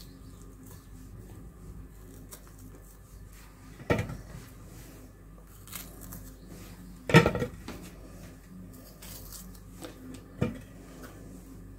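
Quiet handling of strawberries being hulled with a small paring knife, with three light knocks about four, seven and ten seconds in, the middle one the loudest.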